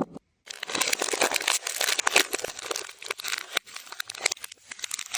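Dense crinkling and crackling of food and wrappers being handled on a platter, played in reverse; it starts about half a second in after a brief gap.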